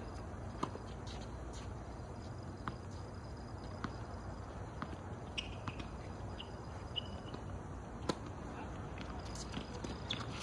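Quiet outdoor tennis court between points: a steady low rumble with scattered light taps, the sharpest about eight seconds in, and a couple of brief high squeaks.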